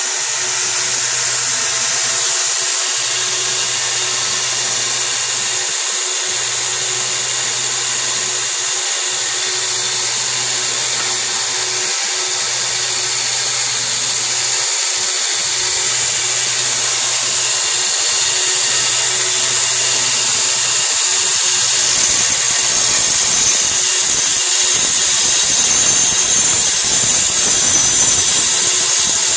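Home-built belt grinder for sanding knife blades running steadily, its abrasive belt hissing over the wheels. In the last several seconds a steel bar is pressed against the belt and ground, sparks flying, and the sound grows a little louder and rougher.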